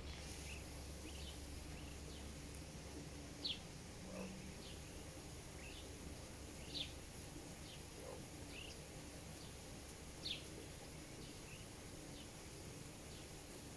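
Pāteke (brown teal) ducklings peeping: short, high, falling peeps every second or so, three of them louder, over a faint steady high hiss.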